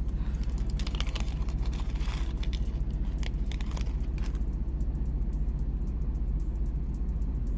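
Plastic bead bag rustling and Czech glass leaf beads clicking together as they are tipped into a palm, over a steady low rumble. The clicking thins out about four and a half seconds in.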